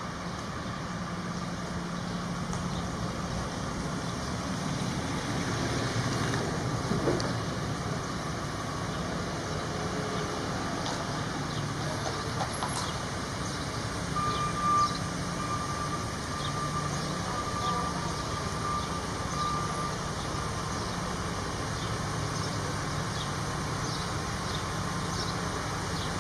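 A vehicle engine running steadily with a low rumble. A high, steady tone joins it a little past halfway and holds for several seconds.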